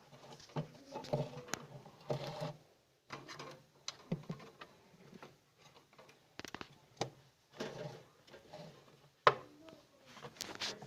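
Irregular clicks, taps and knocks of hands handling and fitting plastic fridge parts, with one sharper click about nine seconds in.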